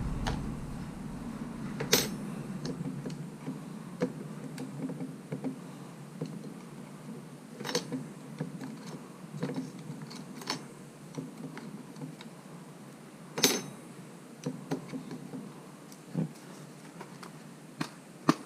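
Scattered light clicks and metallic clinks of small hardware and hand tools being handled while a touchscreen operator panel is taken apart, with a few sharper clinks standing out.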